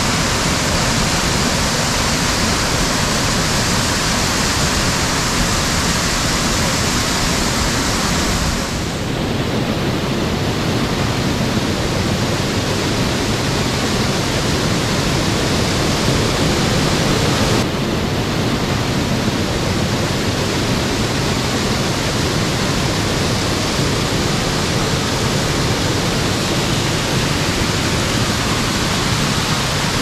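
Waterfall rushing: a steady, loud wash of falling water, its character shifting abruptly about 9 seconds in and again near 18 seconds.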